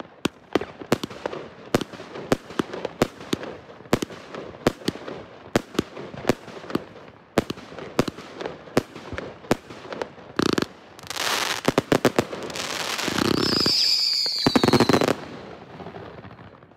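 Surex SFC193 '5 in 1' 193-shot consumer fireworks battery firing: sharp shots and bursts come about two to three a second. About ten seconds in, a dense rapid-fire volley with a high whistling tone begins, then it stops abruptly.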